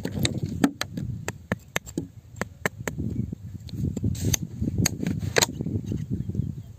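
Sharp irregular clicks and taps of a stick poking through wet, stony soil, about fifteen in five seconds, with a couple of brief scrapes near four and five and a half seconds in, over a low steady rumble.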